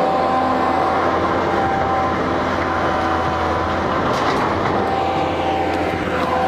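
Excavator's diesel engine running steadily at a work site, with a low hum and a steady whine over it.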